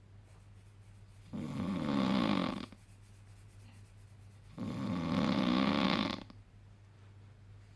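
A sleeping man snoring, two long snores about three seconds apart, each lasting over a second.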